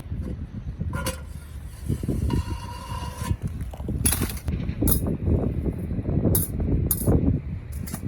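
Wind buffeting the microphone in uneven gusts, with a handful of sharp clicks and knocks and a brief squeak about two seconds in.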